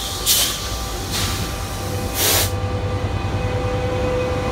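Metrolink commuter train's bilevel coaches rolling slowly past, with three short bursts of air hiss in the first two and a half seconds. A low engine rumble grows toward the end as the F125 diesel locomotive draws near.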